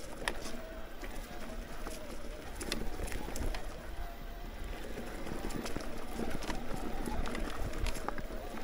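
Mountain bike riding over a rough dirt trail: steady tyre and wind rumble, with frequent sharp clicks and rattles from the bike.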